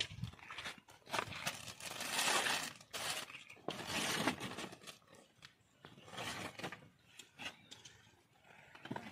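Plastic bags and cloth rustling and crinkling as they are handled and unpacked, in irregular bursts, loudest about two and four seconds in.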